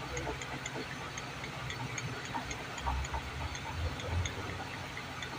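Chevrolet Celta running with a steady low rumble, a few dull low knocks about three and four seconds in, and faint light ticking: the suspension noise that remains after the CV joints were replaced.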